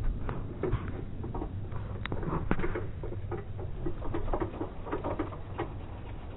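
Bicycle rattling and clicking irregularly as it rolls over paving, over a low steady rumble.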